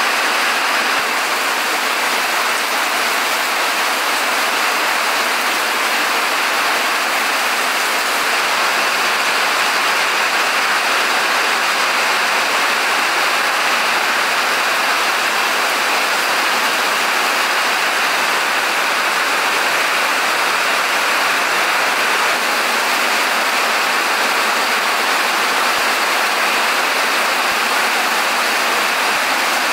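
Steady heavy rain, an even hiss with no breaks.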